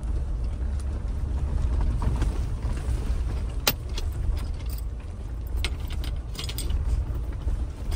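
Mahindra Scorpio on the move at low speed, heard inside the cabin: a steady low engine and road rumble, with scattered light jingling clicks and one sharp click a little before halfway.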